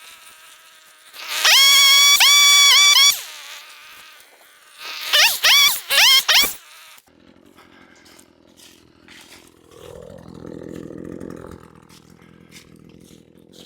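Small two-stroke engine of a gas saw revving hard and holding high for about two seconds, then three quick throttle blips a few seconds later, before dropping to a low idle.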